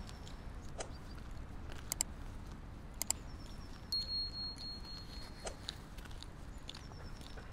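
Walking on a city street: a low steady rumble with scattered sharp clicks, and a thin high steady tone lasting about a second and a half, about four seconds in.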